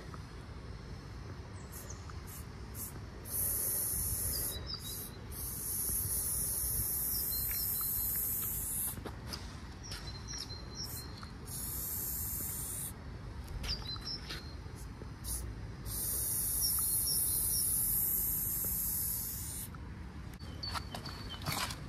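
Aerosol spray paint can hissing as paint is sprayed onto a wall: three long sprays of several seconds each, the first starting about three seconds in, with short bursts and a few clicks between them.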